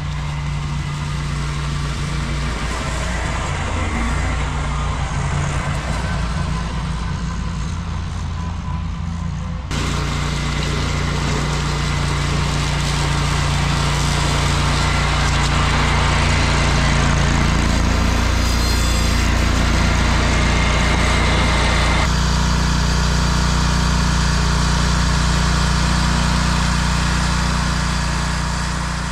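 Ventrac tractor's engine running steadily while mowing overgrown grass with the Tough Cut deck. The sound changes abruptly twice, about ten seconds in and again about twenty-two seconds in.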